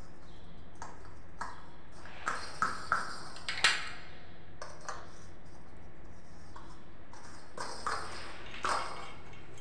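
Light metallic clicks and clinks as chrome wall cover plates are handled and pushed onto a shower mixer's wall connectors. A run of about four clicks comes between two and four seconds in, the last the loudest, and a few softer ones follow near the end.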